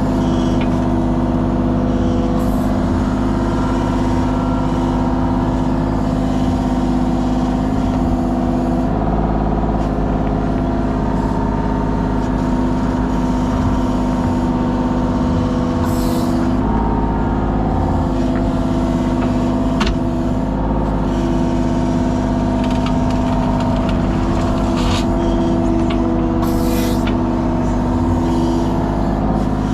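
Kubota KX033 mini excavator's diesel engine running steadily under hydraulic working load, its pitch shifting slightly now and then. A few brief sharp knocks and scrapes cut through it.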